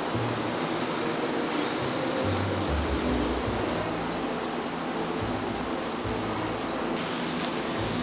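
Steady machinery noise from a pan production line's running conveyor, with a low rumble that comes and goes.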